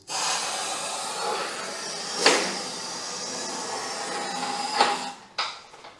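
Cavity wax being sprayed through a lance into a car's sill: a steady hiss that cuts off about five seconds in, with a short knock a little over two seconds in.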